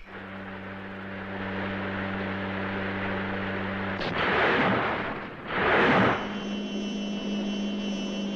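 Cartoon sound effects of a submarine-like craft: a steady low mechanical hum while it runs under the water, then two loud rushing surges of water as it breaks the surface in spray. After that comes a steady hum with higher tones.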